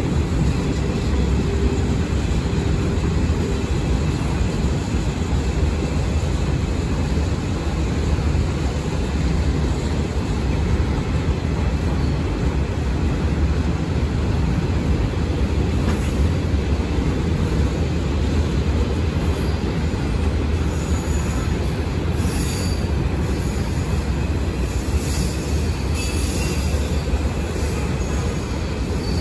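A train running on the rails, with a steady low sound of wheels and cars. Faint brief high-pitched wheel squeals come in during the second half.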